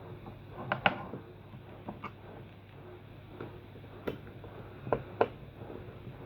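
Light clicks and knocks from the parts of an Eheim 400 aquarium air pump being handled and fitted back together, with the diaphragm going back on and screws going in. The loudest is a double click just under a second in; single clicks follow every second or so.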